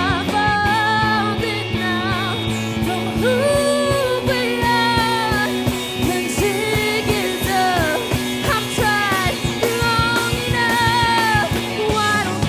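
Rock band playing a song live: a steady beat, sustained bass notes and a sliding melodic lead line over guitars.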